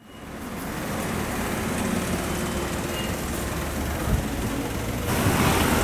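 Steady street noise with a low vehicle rumble, fading in at the start and getting a little louder about five seconds in, with a short low knock shortly before that.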